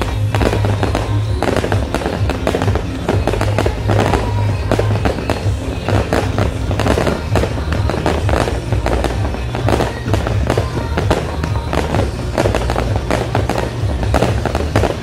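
Fireworks display: aerial shells bursting in a rapid, unbroken string of bangs and crackles, with music playing underneath.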